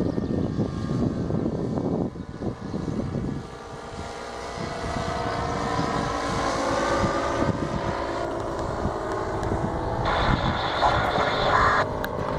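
A small propeller engine runs under heavy wind buffeting on the microphone. The wind eases after about three seconds, the engine note then climbs, and a higher whine comes in for the last couple of seconds.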